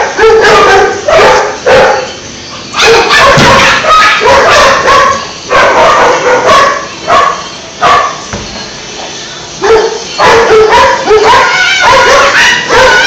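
Dogs barking and yipping loudly in quick runs of short calls, with brief lulls about two seconds in and again around eight to ten seconds.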